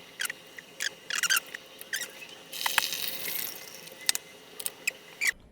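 Breville Oracle Touch espresso machine giving a string of short high squeaks and clicks, with a brief hiss about two and a half seconds in, as it tries to flush and heat up. The owner puts its noise down to demineralized water, which the machine could not detect, so it never drew water into the system.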